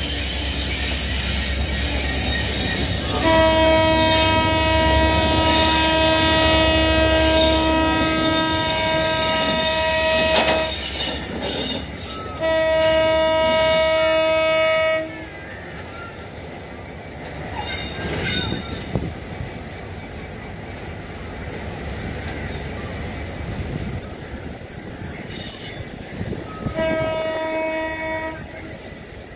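Horn of a Class M11 (EMD WDG-4D) diesel locomotive: a long chord blast about three seconds in, a second blast a couple of seconds later and a short one near the end. Under it run a low engine rumble, which fades partway through, and some clatter of wheels on the rails.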